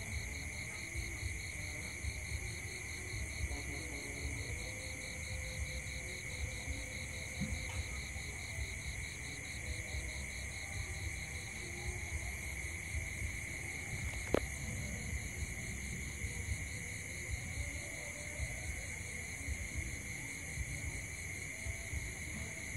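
Night insect chorus: several steady trills at different pitches, one of them pulsing rapidly, over an uneven low rumble. A single sharp click stands out about fourteen seconds in.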